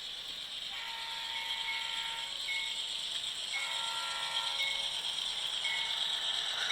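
HO-scale Atlas GE Dash 8-40CW model locomotive running on its track with a steady mechanical rattle, while its ESU LokSound 5 sound decoder sounds the horn in several blasts of about a second each.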